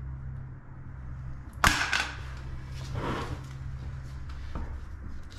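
Handling sounds from a plastic tub of pre-mixed tile adhesive and grout and a tiling float: one sharp knock about a second and a half in, then a brief scraping swish, over a steady low hum.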